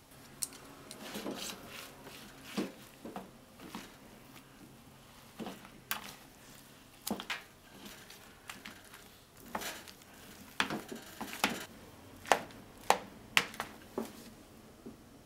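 Chopsticks stirring cooked rice into beaten egg in a plastic bowl: irregular clicks and scrapes against the bowl, coming faster and louder in the last few seconds.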